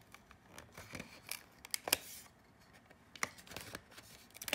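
Plastic clicks and knocks as an alarm clock's plastic housing is handled and pried apart, the loudest knock about two seconds in.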